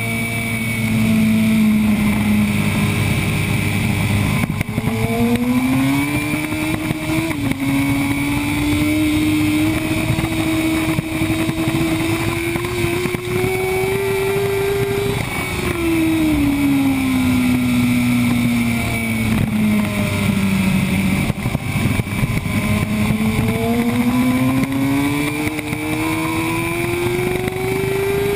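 Yamaha R1 sport bike's inline-four engine under hard acceleration, recorded onboard with heavy wind rush. The engine note climbs steadily, drops for a few seconds about halfway through as the bike slows for a corner, then climbs again.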